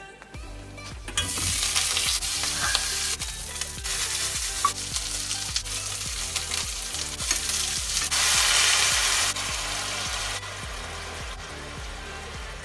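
Meat frying in hot oil in a frying pan, with scallions and dried chillies added, sizzling steadily. The sizzle starts about a second in, is loudest around eight to nine seconds in, then eases off.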